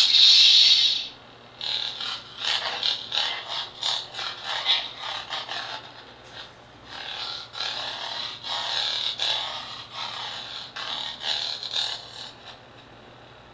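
Lightsaber core sound board playing loudly through its small built-in speaker. A sharp burst in the first second is followed by a long run of crackly, distorted sound effects in uneven pulses, stopping about a second before the end.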